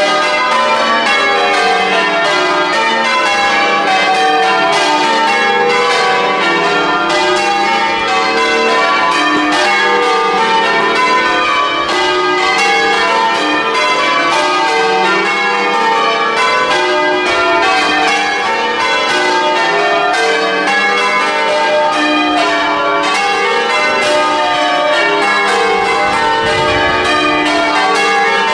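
Church tower bells rung full-circle in changes: a steady, rapid stream of bell strikes with many overlapping ringing tones.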